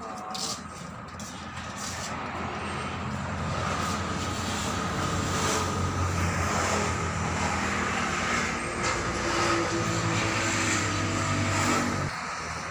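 An engine running with a steady low hum, growing louder over the first few seconds and then dropping away about twelve seconds in.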